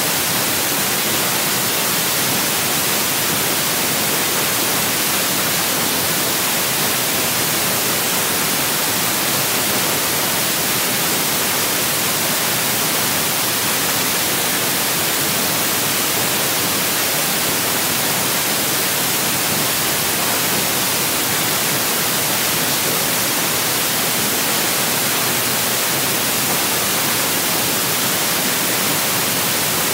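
Steady, loud hiss of recording static, brightest in the treble, with no other sound over it.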